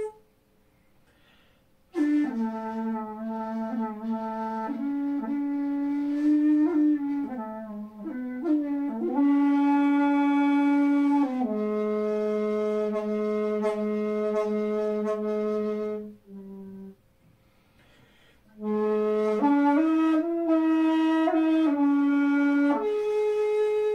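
Jinashi shakuhachi, 2.4 shaku long and pitched in A, played solo: held notes mostly in the low register with some bends in pitch and one long low note in the middle. The phrases start about two seconds in and break off for a pause about two-thirds of the way through, with one short note in the gap.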